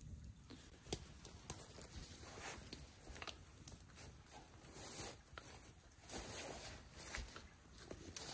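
Faint, scattered clicks, scrapes and rustles of camp cookware and food being handled while soup and bannock are dished up.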